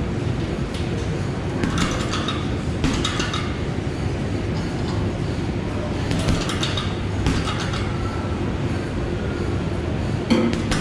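Boxing gloves hitting a hanging heavy punching bag a handful of times, a second or more apart, each hit followed by a brief metallic rattle from the bag's hanging chain, over steady gym background noise.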